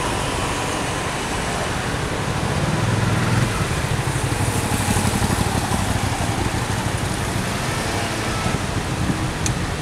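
Slow queuing traffic of cars and scooters: engines idling and creeping forward over a steady road hiss. A nearby engine's low hum grows louder about two and a half seconds in and eases off after about seven seconds.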